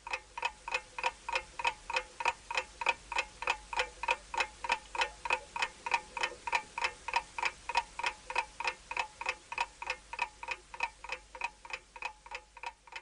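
Steady clock-like ticking, about four ticks a second, each tick carrying a short ringing note; the ticks grow a little quieter near the end.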